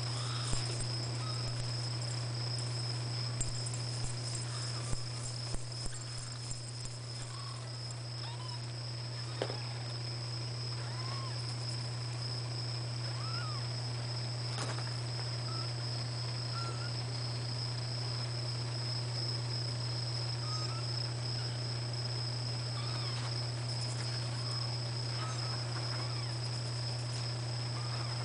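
Steady low electrical hum and a constant high-pitched whine from the recording equipment. A few soft clicks come in the first several seconds, and faint short squeaks are scattered through.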